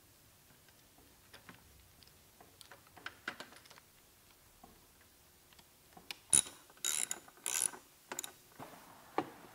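Hands fitting a replacement inverter into a Honda EU6500is generator and plugging its wiring connectors together: scattered light clicks and knocks, then a cluster of louder plastic clicks and rattles about six to eight seconds in.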